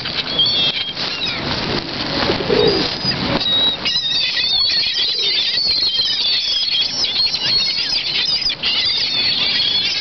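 A flock of gulls crowding for food on the water, many birds calling over one another in short, high squeals amid flapping wings. The calling grows much denser about four seconds in.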